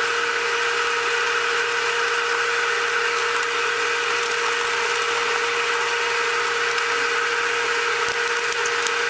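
A small power tool running steadily at high speed, a constant whine that starts abruptly just before and holds unchanged.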